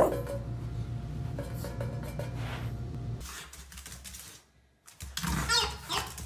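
Low hum with light clattering, then about five seconds in a dog's giggle-ball toy lets out its wobbly, warbling giggle.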